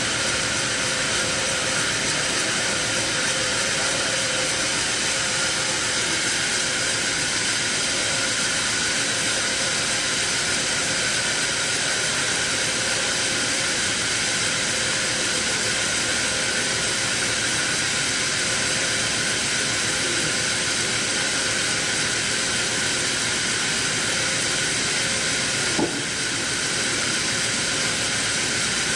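Sawmill saw cutting lengthwise through a teak log: a steady, even hiss-like noise with a faint whine, and one short knock near the end.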